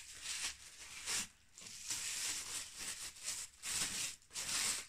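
Packaging rustling and tearing as items are unwrapped by hand, in a run of uneven surges that grow loudest near the end.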